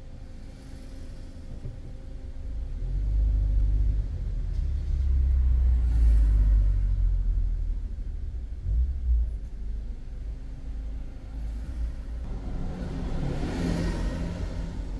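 Low engine and road rumble of a car driving slowly on a city street, heard from inside the cabin. The rumble swells a few seconds in as it gathers speed. Near the end a brief rising rush of tyre noise comes from passing traffic.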